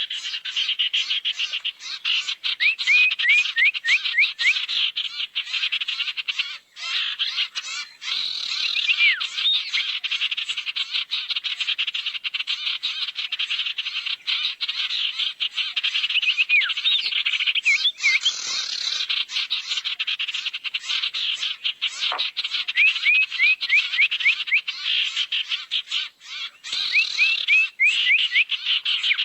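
Lure recording of sirtu bird calls: a continuous, fast rattling chatter, broken several times by quick runs of five or six short chirps.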